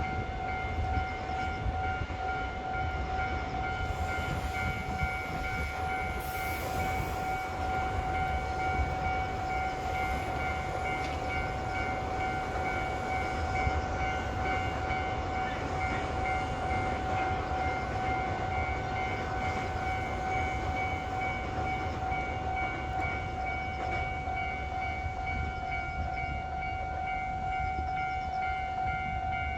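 Freight container train passing with a low, continuous rumble, under a steady unbroken tone that holds at one pitch throughout.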